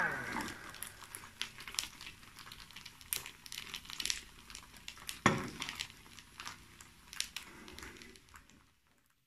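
Spaghetti omelet frying in oil in a nonstick pan, the oil crackling and spitting in quick, irregular pops. One louder knock comes about five seconds in, and the sound cuts off suddenly near the end.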